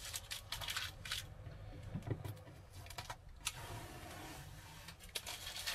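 Light clicks and rustles of small parts being handled by hand, in short clusters near the start and again two to three seconds in, over a low steady hum.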